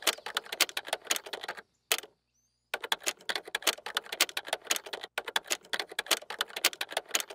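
Typing sound effect: rapid key clicks, several a second, keeping time with text being typed out letter by letter, with a pause of about a second about one and a half seconds in.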